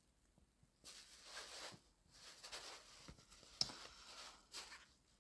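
Faint rustling and handling noise close to a phone's microphone, in short soft patches, with a small click about three and a half seconds in.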